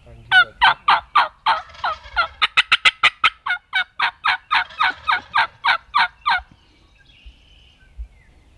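A long run of turkey yelps, about four sharp notes a second for some six seconds, with a faster rattling run of notes in the middle, then it stops.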